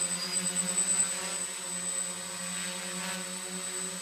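DJI F450 quadcopter hovering, its four motors and propellers giving a steady, even buzz.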